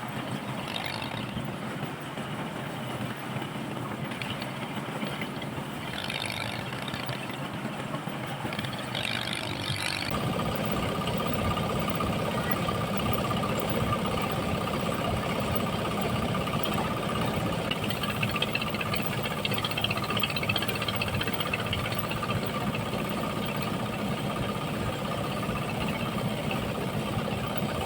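An engine running. About ten seconds in it becomes louder and steadier, with a steady whine above the rumble.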